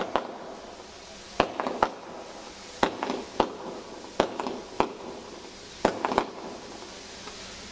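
Fireworks going off in a quick series of sharp bangs, singly and in clusters of two or three, about every second, over a steady hiss and crackle.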